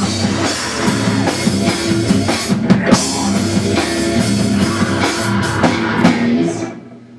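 Rock music with drum kit and guitar, which cuts off near the end and leaves a faint steady hum.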